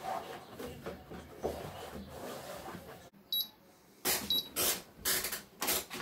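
Hands rubbing along the underside of a treadmill belt, spreading liquid vaseline on the deck. Then the treadmill console beeps twice, about a second apart, and the belt starts, with a run of dull thumps about twice a second.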